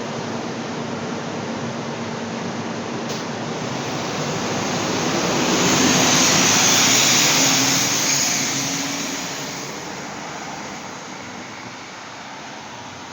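Interior running noise of a Scania K230UB bus under way, engine and road noise together. The noise swells to a peak about halfway through, then dies down to a lower, steady level.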